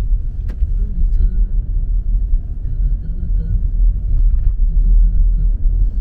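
Car cabin noise while driving: a steady low road-and-engine rumble, with a single click about half a second in.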